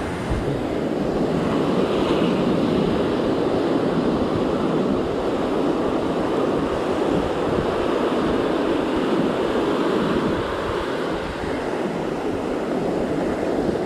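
Ocean surf: waves breaking offshore and foamy wash running up and back over the sand, a steady, even rush of water noise.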